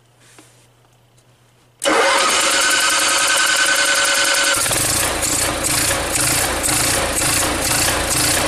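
Onan Emerald III RV generator being started: about two seconds in the starter cranks it for roughly three seconds, then the engine catches and runs with a regular pulsing about twice a second. The pulsing is the surging that the owner blames on a carburetor needing a rebuild.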